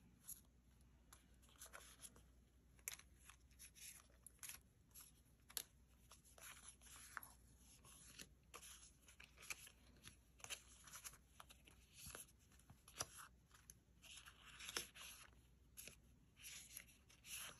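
Faint rustling and flicking of paper sticker sheets being leafed through and sorted by hand, a scatter of small crisp ticks and rubs.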